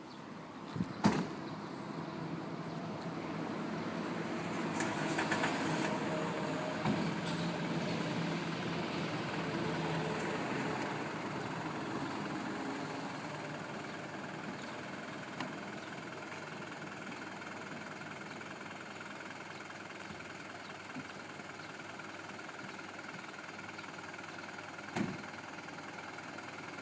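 Fire pump truck's engine running, louder for several seconds early on and then steady. A sharp knock about a second in and a shorter one near the end.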